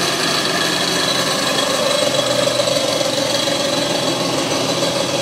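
Belt sander running steadily, with no work held against the belt: a constant motor hum and belt whir.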